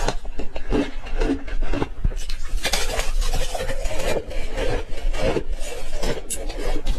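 Ice being chewed close to the microphone: a dense, irregular run of crunches and crackles.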